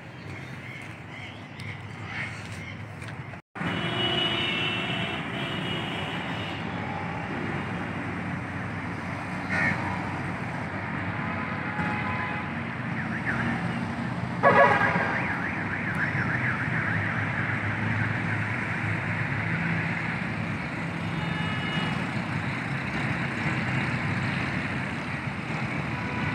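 Steady outdoor city background of distant road traffic. There is a brief louder sound about fourteen seconds in, and the sound cuts out for an instant a little after three seconds in.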